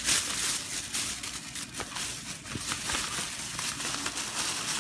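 Continuous rustling and crinkling of packaging, with many small crackles, as school supplies are handled and shifted.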